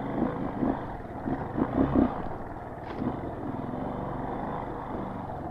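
Motorcycle engine running at low revs in first gear while crawling over tight trail terrain, with a few short throttle blips about one and a half to two seconds in.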